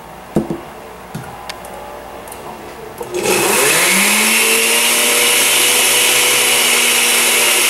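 A couple of sharp knocks, then about three seconds in a countertop blender switches on: its motor spins up with a hum that rises in pitch and settles, and it runs loud and steady, blending chunks of avocado with lime juice.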